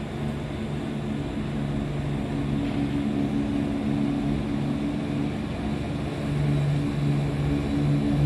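Diesel multiple unit's engine running with a steady drone at the platform, growing a little louder about six and a half seconds in.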